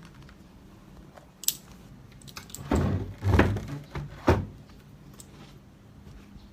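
Objects being handled and set down on a hard surface: a sharp click about a second and a half in, then several dull thuds and knocks in quick succession.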